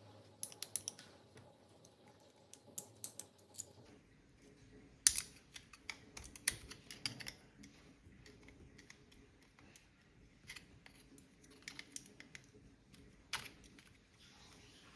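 Irregular sharp clicks and taps of small hard parts being handled and worked on, coming in clusters with the loudest click about five seconds in.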